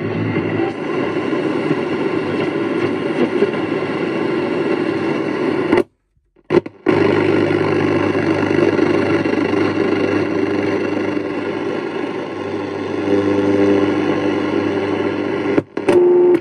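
National Panasonic RQ-551LJS radio's speaker giving steady static and buzzing interference as it is tuned between stations. The sound cuts out briefly about six seconds in and again near the end, when the band selector is turned.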